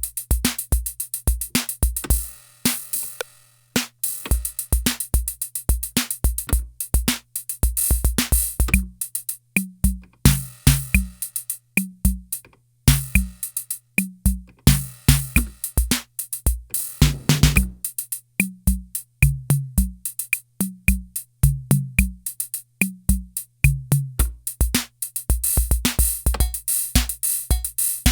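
Korg KR-55 analog drum machine playing rhythm patterns: repeating bass drum, hi-hat ticks and pitched drum hits, with brief breaks where a pattern stops and a new one starts. A steady low hum runs underneath.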